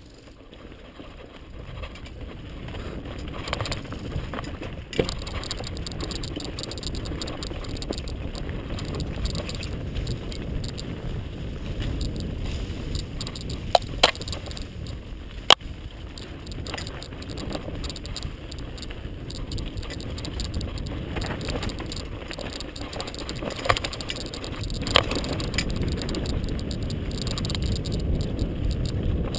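Mountain bike descending a rough dirt singletrack, recorded from a helmet-mounted camera: a steady rumble and rattle of tyres and bike over the ground, growing louder in the first couple of seconds. Sharp clacks cut through it, two about halfway through and two more near the end.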